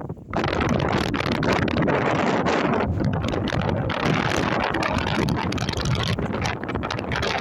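Wind buffeting the microphone: a loud, rough rushing noise that surges in suddenly just after the start and stays up throughout.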